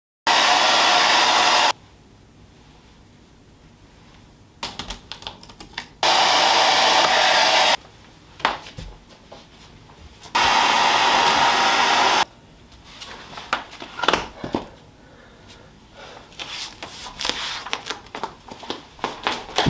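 Three bursts of loud, steady rushing air, each about one and a half to two seconds, starting and stopping abruptly. Scattered knocks and clatter from handling things at the wall come between and after them.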